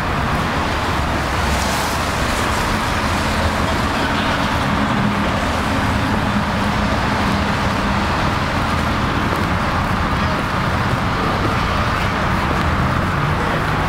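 Steady city street traffic noise from cars driving along the road.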